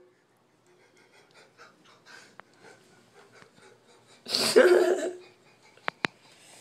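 A man laughing hard in one loud burst about four seconds in, after a few faint scattered sounds. Two short sharp clicks follow near the end.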